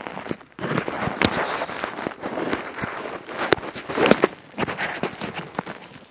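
Close rustling and crackling handling noise at the camera's microphone, with many irregular sharp clicks that get louder about half a second in.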